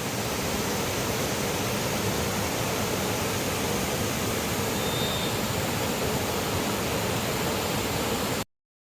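River water rushing steadily. It cuts off abruptly near the end.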